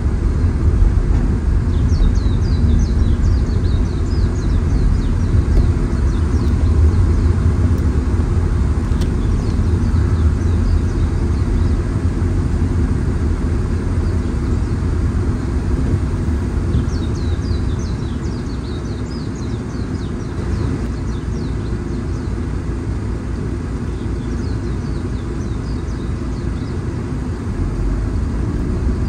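Car road noise heard from inside the cabin: a steady low rumble of engine and tyres that quietens a little about two-thirds of the way through. Brief high chirps come through now and then.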